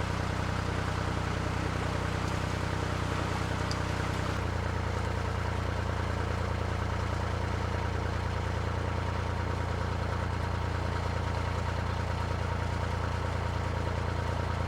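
Narrowboat engine running steadily at cruising revs, its note changing abruptly about four seconds in.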